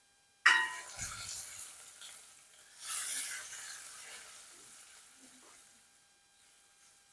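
Sliced onions sizzling in hot oil in a cooking pot as they are stirred with a slotted spoon. The sizzle starts suddenly about half a second in, swells again around three seconds, then fades.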